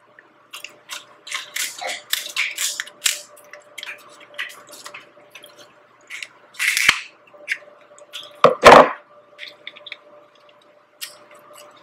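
Kitchen scissors snipping and cracking through king crab leg shell: a string of sharp clicks and cracks, the loudest about seven seconds in and again near nine seconds.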